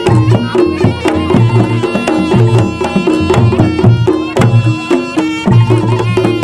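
Reog Ponorogo kendang drumming: fast, dense hand-drum strokes over a melodic accompaniment with held notes and a steady, repeating bass line.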